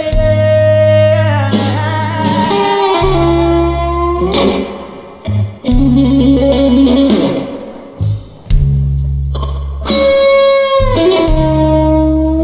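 Slow blues electric guitar solo: long held notes that bend and waver with vibrato over a steady bass line and band.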